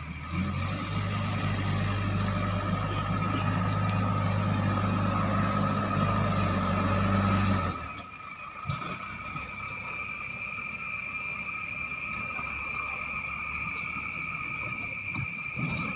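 JCB 3DX backhoe loader's diesel engine working with a strong, steady low note that drops away suddenly about eight seconds in. A steady high-pitched whine runs underneath throughout.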